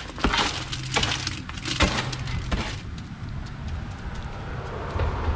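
Concrete mix pouring out of a plastic wheelbarrow into a cardboard sonotube footing form: a gritty, rattling pour with many small knocks for the first few seconds. It then turns quieter, with one dull thump near the end.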